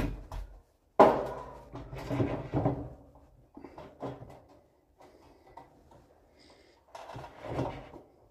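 Furniture boards being handled against a shelving frame: a knock at the start, a louder knock about a second in that rings on for a moment, then smaller knocks and scraping, with another bout of knocking near the end.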